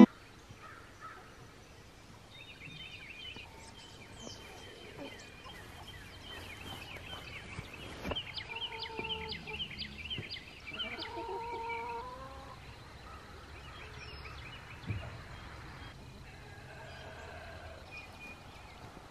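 Chickens clucking and peeping amid other bird calls: a quiet stretch of many short chirps and calls, busiest in the middle.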